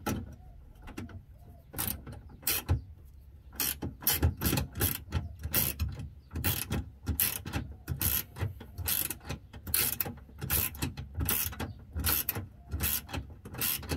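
Ratcheting spanner clicking in short runs as the big tank-mounting bolts through the chassis rail are done up. The clicks are sparse at first and come thick and fast from about four seconds in.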